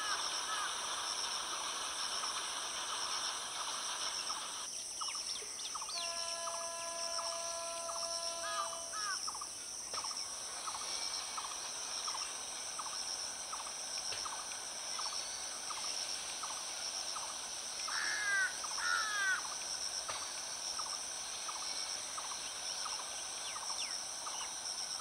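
Rural ambience: a steady, high, pulsing insect drone with birds calling over it, including a run of repeated pitched calls a few seconds in and a cluster of sharp chirps about three-quarters of the way through. There is no train rumble.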